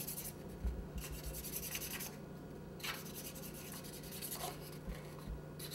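Faint scratchy brushing of a small paintbrush spreading water over a cardboard cake board, over a steady low hum.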